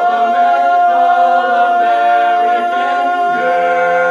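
Male barbershop quartet singing a cappella, holding long close-harmony chords. About three seconds in the chord shifts and the bass drops lower into the song's closing chord, which is held steady.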